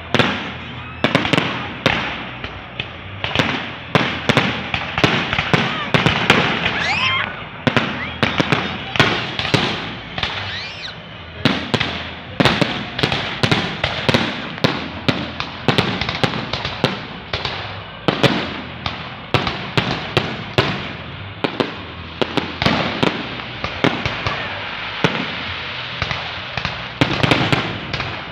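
Fireworks display: a rapid, continuous string of sharp bangs and crackling bursts, with a few rising whistles among them.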